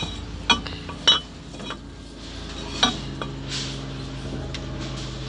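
Sharp metallic clinks of a steel wet cylinder liner being handled and set against the bore of a Daewoo V8 engine block. There are three louder strikes in the first three seconds among lighter taps, and a steady low hum starts about three seconds in.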